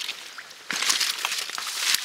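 Footsteps through wet leaf litter and swamp undergrowth, a rustling crunch that grows louder and denser from about two-thirds of a second in.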